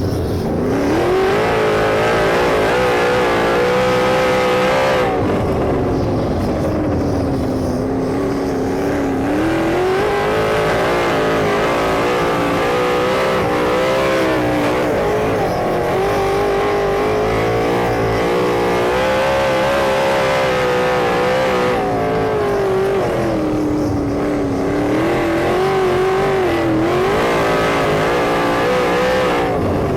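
Sprint car engine running hard on track. Its pitch climbs as it accelerates and falls away as it backs off, in long repeated swells.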